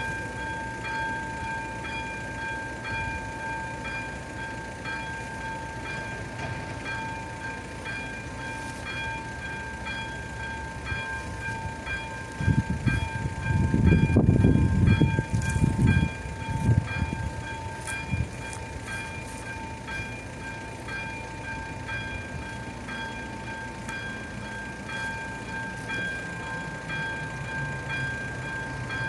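Level-crossing warning signal's electronic bell (AŽD 71 type) ringing with a steady high tone while the crossing lights flash, warning of an approaching train. About halfway through, a louder low rumble lasts a few seconds.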